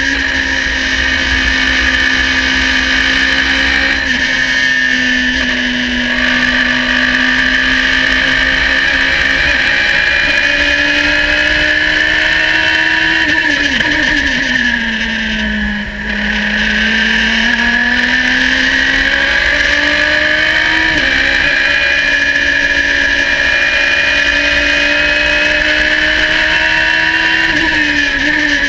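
Onboard sound of a Radical sports-prototype race car driven hard: the engine runs at high revs, drops in pitch under braking and a downshift about halfway through, then climbs steadily as it accelerates out of the corner. Near the end the pitch falls again as it brakes for the next turn.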